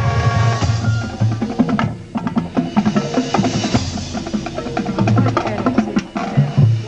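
Band music in a percussion-heavy passage: rapid drum strikes and sharp clicks over low pitched notes.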